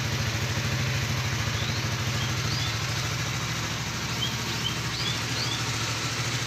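Motorcycle engine idling steadily, with a few short high bird chirps in the middle and second half.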